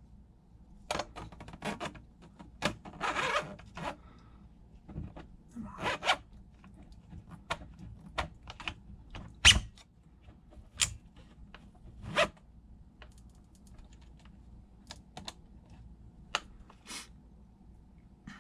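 Scattered clicks, snaps and short scrapes of 3D-printed plastic parts being handled: the folding grip of a 3D-printed airsoft FPG taken off, fitted back onto the body and swung open. The sharpest snap comes about halfway through.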